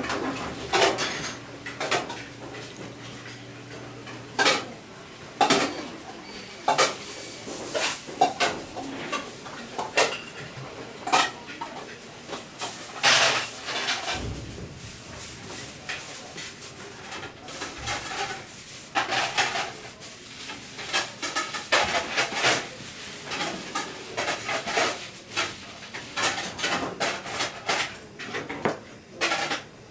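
Kitchen knife chopping sea squirts on a plastic cutting board: a string of sharp, irregular knocks of the blade striking the board.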